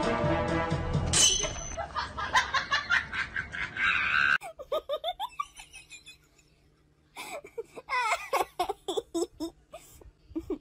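Music that cuts off suddenly about four seconds in, followed by people laughing and talking in short bursts.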